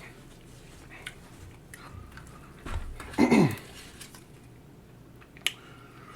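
Quiet eating sounds, chewing and small clicks, with a short loud hum that falls in pitch about three seconds in. A sharp click comes near the end.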